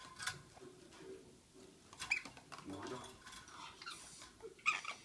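A pet black-capped lory scratching and clattering about its cage in an uneven run of small clicks and rattles, with sharper clatters about two seconds in and near the end.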